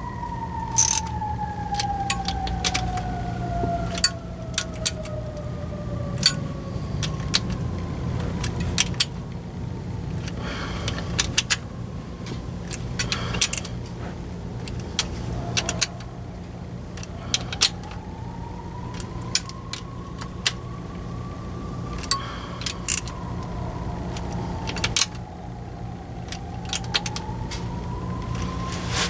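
Sharp, irregular metal clicks of a hand wrench on the valve-body bolts of a 44RE automatic transmission as they are snugged down, over a steady low hum. A slow gliding tone sounds behind, falling over the first few seconds and rising and falling again in the second half.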